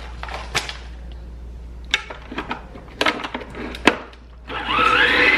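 A few sharp taps and clicks against kitchenware, then, about four and a half seconds in, an electric mixer motor starts, whining up in pitch and settling into a steady run while mixing the cream-cheese filling.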